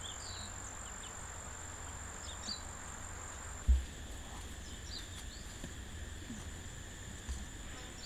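Rainforest ambience: a steady high-pitched insect drone with scattered short bird chirps over a low rumble, and one dull thump about four seconds in.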